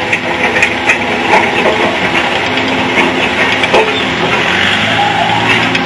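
Antique International Harvester Farmall tractor engine idling steadily at the pulling sled, its low, even engine note coming up clearer about halfway through.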